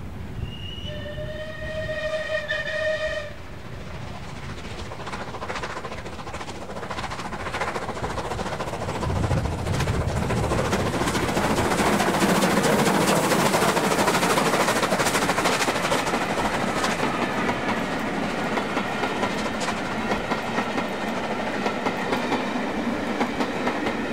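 Steam locomotive 34059, a rebuilt Bulleid 'Battle of Britain' class light pacific, sounds one steady whistle blast of about three seconds, then works away with rapid exhaust beats and steam that grow louder and peak about halfway through.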